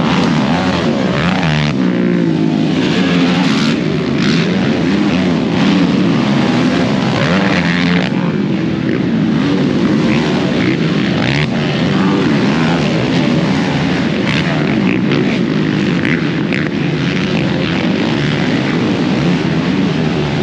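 Racing ATV engines revving up and down as quads ride the motocross track, several engines overlapping in a steady, loud drone with wavering pitch.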